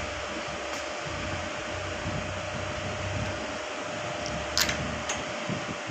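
Electric fan whirring steadily with an even hiss and a constant hum. Two light clicks come about four and a half and five seconds in.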